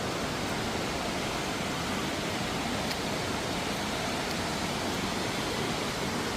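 Steady, even rushing noise of falling water, holding at one level throughout.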